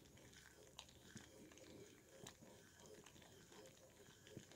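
Faint scattered pops and soft clicks from thick caramel sauce at a rolling boil while a wooden spoon stirs it in a stainless steel saucepan.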